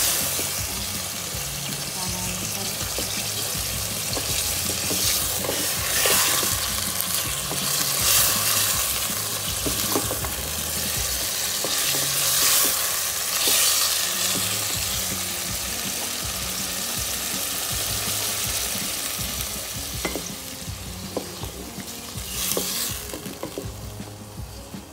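Chicken pieces sizzling in hot oil in a metal pot while a spatula stirs them through freshly added ginger, garlic and cumin pastes. Louder scrapes come every second or two. The sizzle grows quieter in the last few seconds.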